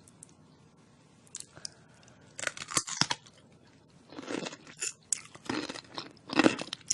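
Crunchy food being bitten and chewed close to the microphone: quiet at first, a few crisp crunches about two and a half seconds in, then a run of chewing crunches through the second half.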